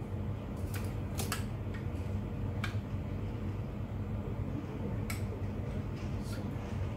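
A steel spoon stirring a liquid mixture in a bowl, with about seven light, irregular clinks against the bowl, over a steady low hum.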